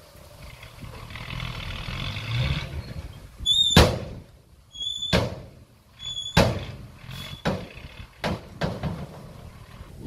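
Heavy earthmoving machinery at work: a rumble builds over the first few seconds, then comes a series of sharp loud metallic bangs, about one a second. The first three bangs each start with a short high squeal.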